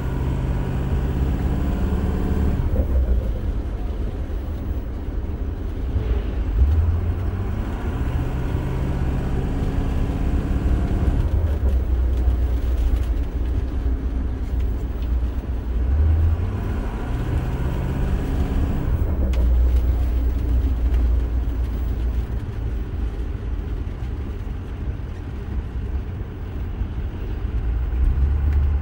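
Freshly rebuilt Ford 6.0 L Power Stroke V8 turbodiesel running, heard from inside the cab: the engine note climbs and drops back sharply three times, over a steady low drone.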